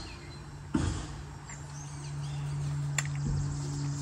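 An air compressor running steadily next door, its hum building louder from about halfway through. A single sharp knock comes about a second in, with a faint click near the end.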